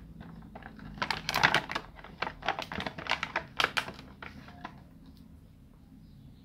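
Small hard plastic miniature toy pieces clicking and clattering as they are picked through by hand. It is a quick, irregular run of clicks that starts about a second in and dies away before five seconds.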